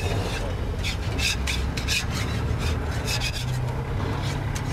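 A spatula scraping again and again across a hot jianbing griddle, in short irregular strokes, loosening the crepe so it can be flipped. A low steady hum runs underneath.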